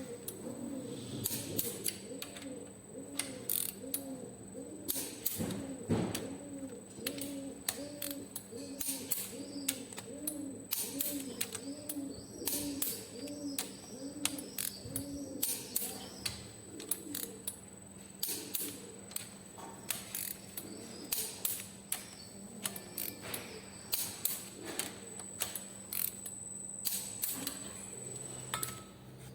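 Ratchet wrench clicking in short irregular runs as the cylinder head bolts of a Hino 300 engine are tightened through their final 120-degree angle. Over the first half, a low warbling note repeats about one and a half times a second underneath.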